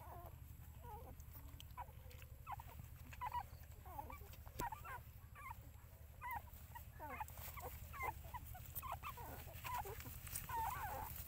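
Nursing puppies squeaking and whimpering in many short, high, wavering calls, over a steady low hum.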